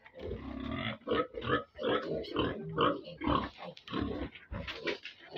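Pigs grunting: many short calls follow one another, with only brief gaps.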